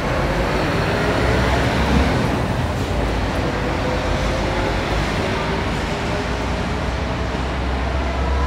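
Heavy-haul tractor unit and multi-axle lowboy trailer, loaded with a railcar, moving slowly past: a deep steady engine rumble and tyre noise, with a faint whine drifting slowly in pitch.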